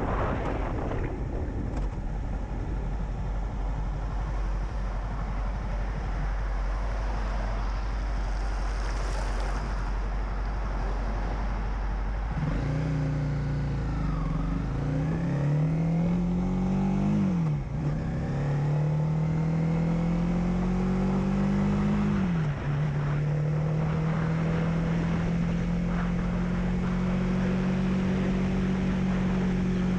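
Honda CB300F's single-cylinder engine pulling away and accelerating through the gears: its note climbs, drops sharply at two upshifts about five seconds apart, then settles into a steady cruise. Before that, for about the first twelve seconds, mostly a steady rush of wind noise with a low hum.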